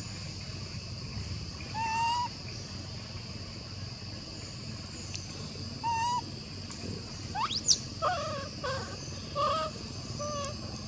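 Short, clear animal calls at scattered moments: two single calls, then one sweeping sharply upward near the middle, then a quick run of short calls near the end. Under them runs a steady high-pitched background hum.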